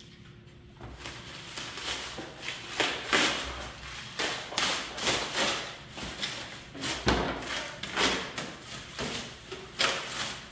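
Handling noises: a quick, irregular run of thumps, knocks and rustles, as packaging and parts are moved about.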